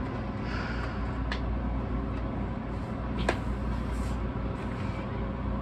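A vinyl record being handled in its paper inner sleeve: a brief rustle and a few small clicks, the sharpest about three seconds in, over a steady background hum.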